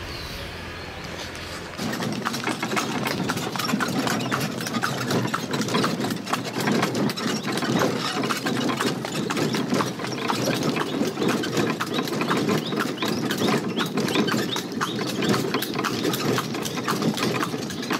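Horse's hooves clip-clopping, heard from aboard a horse-drawn cart with wooden spoked wheels, starting about two seconds in. An engine runs underneath.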